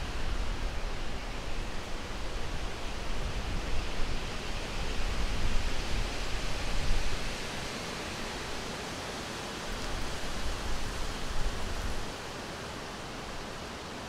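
Steady outdoor hiss with wind gusting on the microphone as an uneven low rumble, heavier through the first half and again about ten to twelve seconds in.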